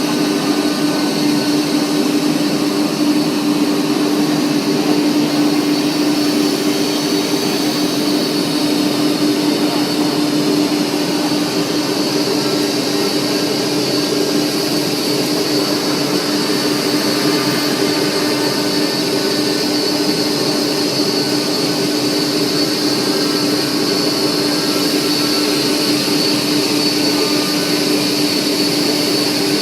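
Industrial horizontal panel saw running steadily: an even machine noise with a steady low hum and a high whine.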